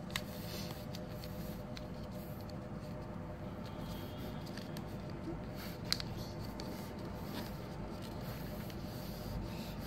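Faint paper handling: fingers folding and pressing creases into origami paper, with two short sharp clicks, one at the start and one about six seconds in, over a steady low room hum.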